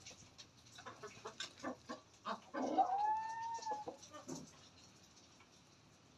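Aseel chickens clucking in short, scattered notes, with one loud drawn-out call about two and a half seconds in that rises slightly and holds for over a second.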